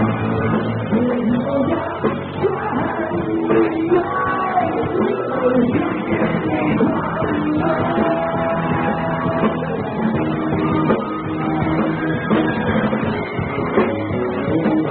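Live rock band playing a song: a singer over guitars and drums.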